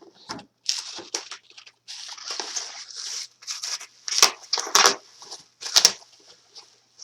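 Packing material being handled and unwrapped by hand: irregular rustling and crinkling, with a few sharper, louder crackles between about four and six seconds in.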